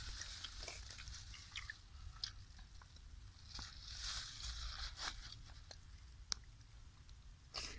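Faint scattered clicks and light crunching of snail shells being handled and picked open, with a soft rustle of plastic about halfway through and one sharper click near the end.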